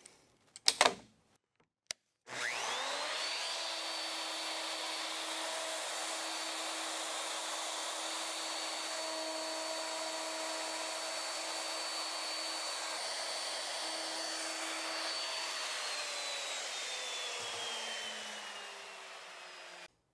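Plunge router with a 1-inch guide bushing in a mortising jig: a sharp click about a second in, then the motor spins up quickly to speed and runs steadily while cutting a mortise. Near the end it is switched off and its whine falls as it winds down.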